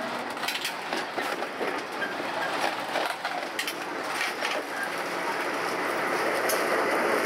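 Lisbon tram running on its rails, heard from inside the car: a steady rumble of wheels on track with frequent clicks and rattles, growing a little louder in the second half.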